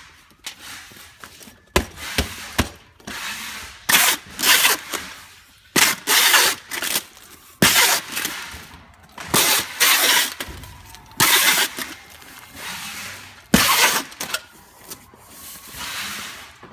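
Clear packing tape being pulled off a handheld tape gun and wrapped around a cardboard bundle: a series of loud ripping pulls, each under a second long, with short pauses between them.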